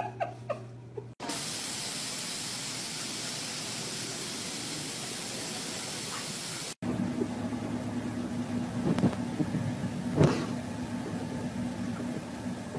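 A steady hiss that cuts off suddenly, then a car running with a steady low hum, broken twice by short sharp sounds.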